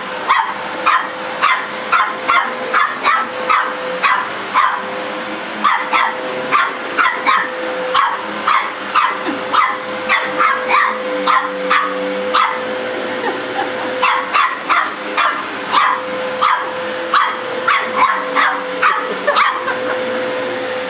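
A dog barking in quick, repeated barks, about two a second with a few short pauses, at a running vacuum cleaner. The vacuum's motor keeps up a steady hum with a steady tone under the barks.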